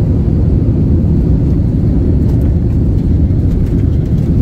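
Airliner cabin noise in flight: a steady, loud low rumble of the engines and rushing airflow.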